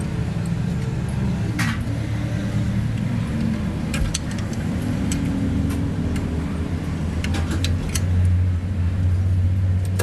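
An engine running steadily, with scattered sharp metallic clicks and taps over it. The engine's hum gets louder about eight seconds in.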